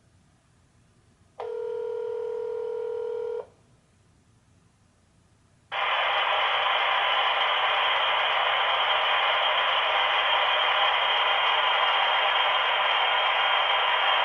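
Phone line heard through an OBi200 VoIP adapter on Google Voice: one two-second burst of ringback tone, then silence, then the call is answered and a loud steady hissing noise suddenly fills the line and holds. This is the fault noise that appears on pickup in place of the other party's audio.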